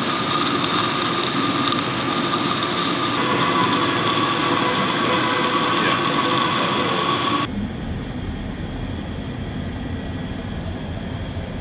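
Laboratory vacuum running steadily with a mechanical hum and hiss as it draws the oil up the test tube. About seven seconds in the sound cuts abruptly to a duller, lower rumble.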